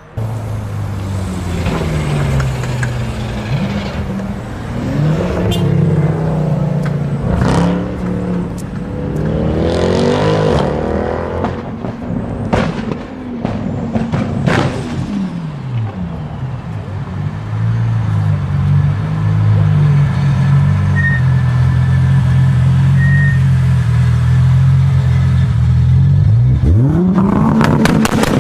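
Toyota Supra MK4's inline-six engine revving and accelerating hard, its pitch climbing and dropping several times in the first half, with a few sharp cracks. In the second half it holds a long steady high drone, then sweeps up sharply again near the end.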